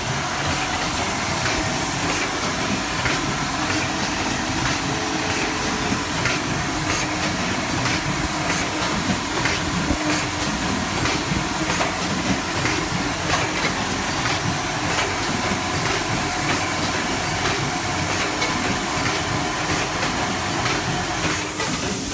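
Triangle nylon mesh tea bag packing machine running: a steady mechanical clatter with many small rapid clicks over a constant hiss-like noise.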